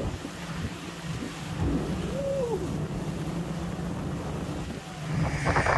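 A small boat's motor runs steadily under way, with water rushing along the hull and wind buffeting the microphone. Everything grows louder near the end.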